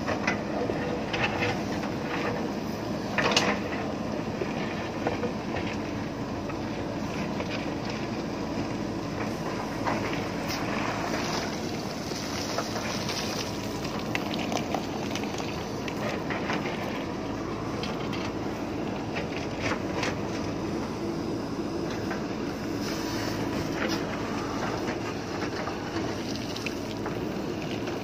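JCB backhoe loader's diesel engine running steadily under load as the backhoe bucket digs into broken stone, with scattered knocks and clatters of rock against the steel bucket; the loudest knock comes about three seconds in.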